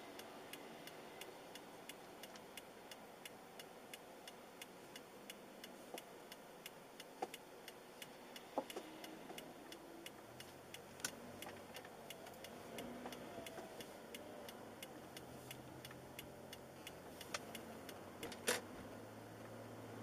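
Car turn-signal indicator ticking at an even pace in the cabin while the car waits to turn, faint, stopping about halfway through. Then a low engine and road hum rises as the car pulls away, with a few louder knocks near the end.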